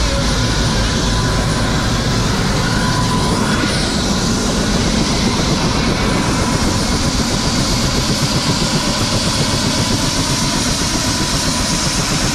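Helicopter running on the ground with its rotor turning: a loud, steady turbine whine over a fast, even rotor chop.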